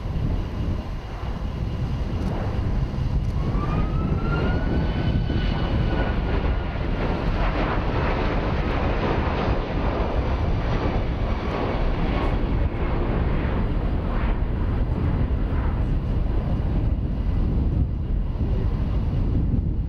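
A Boeing 737 MAX 9's two CFM LEAP-1B turbofan engines running as the airliner flies past overhead and away. The jet noise is steady and loud, with a low rumble. A whining engine tone rises about three seconds in and then slowly falls as the aircraft passes.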